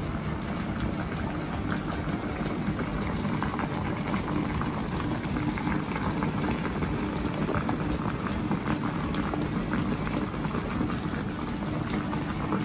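Broth boiling steadily in an electric hot pot, a dense crackle of small bubbles bursting.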